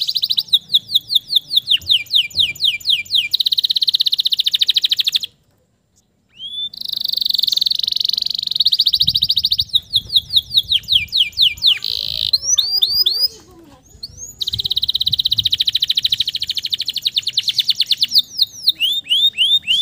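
Male domestic canary singing in long runs of fast repeated chirps and rolling trills, some runs stepping down in pitch. The song breaks off twice briefly, about a quarter of the way in and again about two-thirds in.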